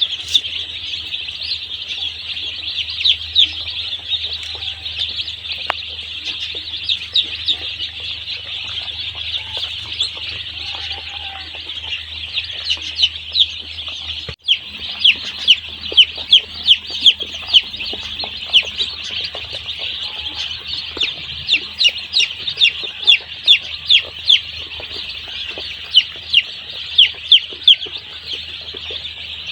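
Many day-old chicks peeping together in a dense, continuous chorus of short high falling peeps, with louder single peeps standing out, over a low steady hum. The sound cuts out for an instant about halfway through.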